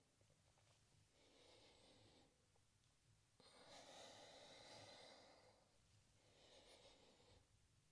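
Very faint breathing from a woman doing yoga: about three slow breaths in and out, paced to a repeated stretch-and-crunch movement.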